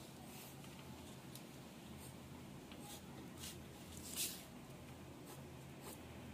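Graphite pencil scratching on paper while tracing around a cardboard template: a faint run of short strokes, one louder stroke about four seconds in.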